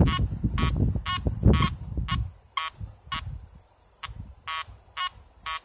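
Makro Multi Kruzer metal detector giving short, same-pitched beeps at irregular intervals while the coil is swept in deep mode at 5 kHz with extra underground depth (EUD) switched on. Low rustling from the coil sweeping through pine needles is loud for the first couple of seconds, then dies down.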